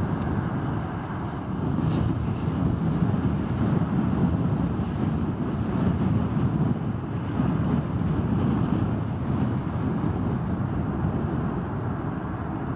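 Steady low jet-engine roar from a taxiing Airbus A310-300, mixed with wind on the microphone.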